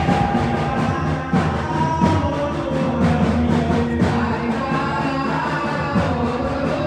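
Garba dance music with a sung melody over percussion.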